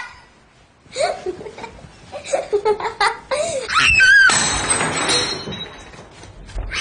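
A person's wordless vocal sounds in short, uneven bursts. A little past four seconds in, a rushing hiss follows for about a second and a half.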